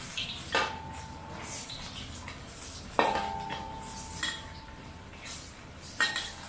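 Metal spatula striking the side of a steel wok three times, the wok ringing on after the strikes, over the steady sizzle of banana fritters deep-frying in oil.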